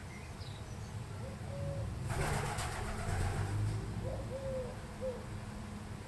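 Eurasian collared dove cooing, two phrases of short low coos, the second a three-note coo. In the middle, a louder rustling whoosh lasts about a second and a half.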